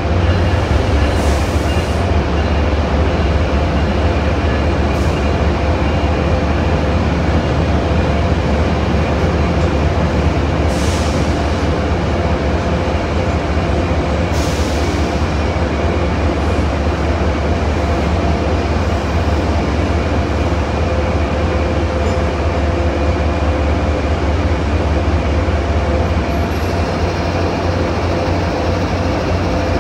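Two diesel-hauled passenger trains, an Amtrak train and an MBTA commuter train, rolling out side by side with a steady deep rumble. Brief high hisses sound near the start and again about 11 and 14 seconds in.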